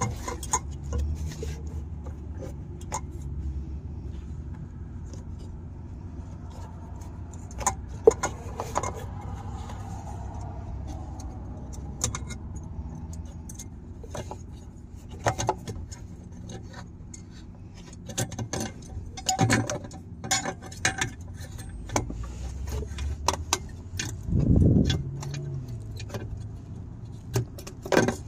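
Scattered small metallic clicks and rattles of a headlight bulb's wire retaining spring clip and the halogen bulb being worked loose by hand and pulled out of the housing, over a low steady rumble. There is a louder low bump near the end.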